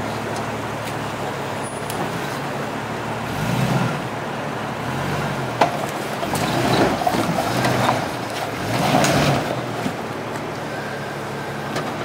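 Jeep engine running as it crawls over rough trail, revving up and easing back down three times. A single sharp knock comes about halfway through.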